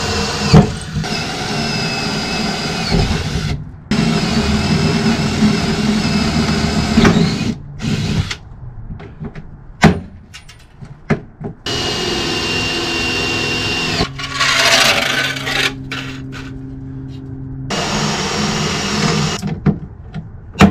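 A cordless power tool running in bursts of one to three seconds with a steady whine while the new aluminium basement-box panel is riveted on, broken by a few sharp snaps typical of rivet mandrels breaking off.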